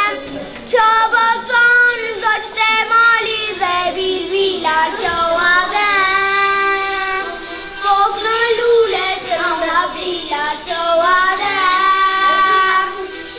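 A young girl singing a song solo, in phrases with several long held notes.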